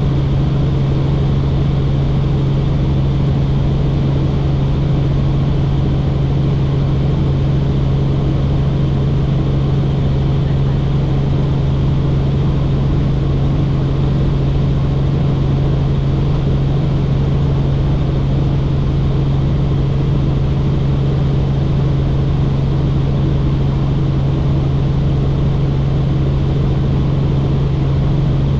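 Helicopter in steady flight: the constant loud drone of its engine and rotors, with a strong, deep, unchanging hum.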